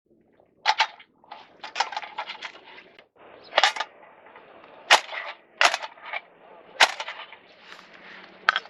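Sharp, hard knocks repeating roughly once a second, with a quick flurry of lighter taps about two seconds in: a wooden baton striking the spine of a knife to split firewood (batoning).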